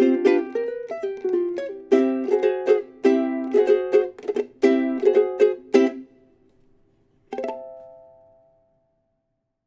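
Solo ukulele playing the closing phrases of a swing chord-melody piece: crisp plucked and strummed chords, a brief pause, then one final chord a little past the middle that rings and fades away.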